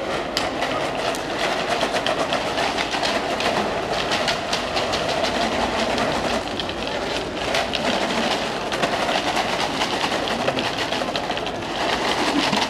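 Small hard pieces rattling inside plastic bottles as they are shaken hard and fast, a dense continuous clatter of clicks.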